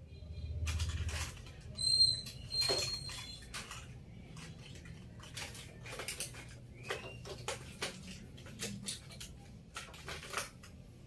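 Small objects being handled and dropped into a wicker basket on a desk: a run of light clicks, taps and rustles, with a short ringing clink about two seconds in.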